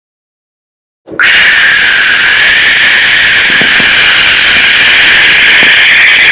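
Mouth-made war sound effect: after about a second of silence, a loud, steady rushing hiss starts suddenly and holds without a break.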